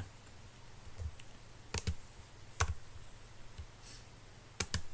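A few sharp computer mouse clicks spaced out over a quiet room, with two quick ones close together near the end.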